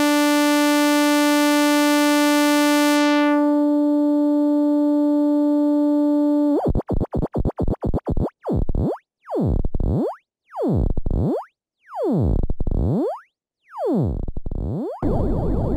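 Novation V-Station synthesizer sound-effect patch. A steady held tone loses its bright upper overtones about three seconds in. About six and a half seconds in it breaks into swooping pitch sweeps with silences between them, quick at first and then longer and slower, and it ends in a dense buzzing texture.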